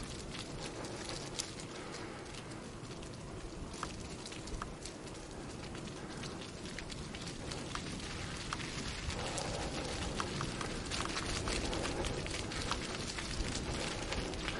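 Mountain bike tyres rolling over a dirt track covered in dry fallen leaves: a steady crackling hiss with many small clicks, a little louder in the second half.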